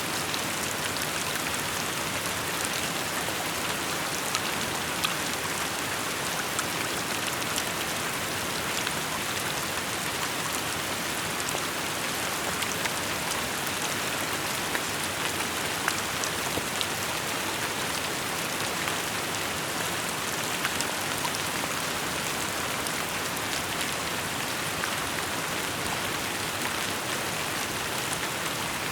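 Steady rainfall, with many individual drops pattering and ticking on surfaces over an even hiss.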